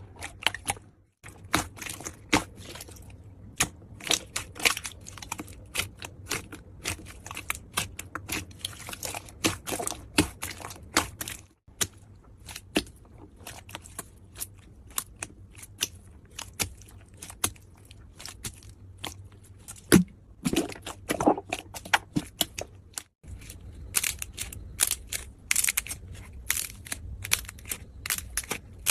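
Slime being squeezed and poked by hand, giving dense sticky clicks and crackling pops, broken three times by a brief silent gap.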